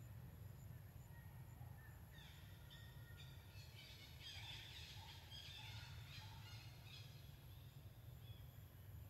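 Faint bird calls in the middle few seconds, a run of short high chirping notes, over a low steady rumble in otherwise near silence.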